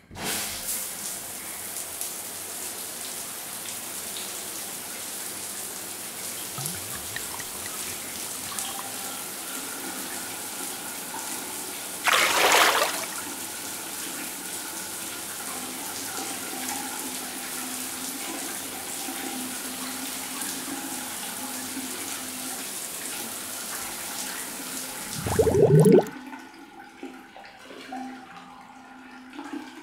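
Steady rushing water, with a short louder splash about twelve seconds in and a bigger surge near the end that cuts off suddenly, leaving it much quieter.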